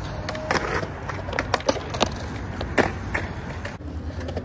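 Skateboard rolling on concrete, its wheels making a steady low rumble, with several sharp clacks of the board and trucks, the loudest nearly three seconds in.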